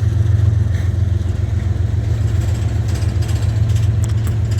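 Diesel freight locomotive engine running with a steady low drone. A few light clicks come in over the last second or so.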